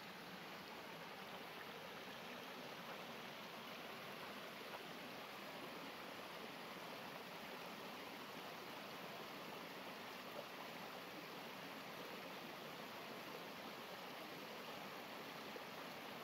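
Running water from a stream: a steady, even rush.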